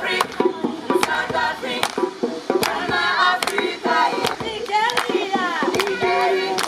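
A group of voices singing together in a lively song, over a steady beat of sharp strikes about twice a second.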